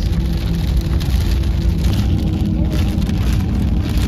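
Cabin noise of a small Fiat Uno–based mini motorhome driving in heavy rain: a steady low drone of engine and tyres on the wet road, with rain on the windshield and bodywork.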